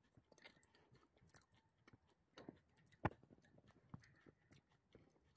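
Faint, scattered crunches and clicks of someone chewing Brazil nuts close to the microphone, with one sharper crunch about three seconds in.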